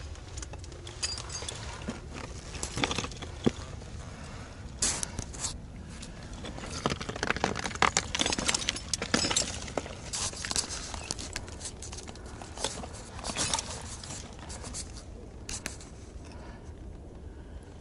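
A climber's metal gear clinking and scraping on rock, mixed with rustling of clothing and handling, in irregular bursts over a steady low rumble.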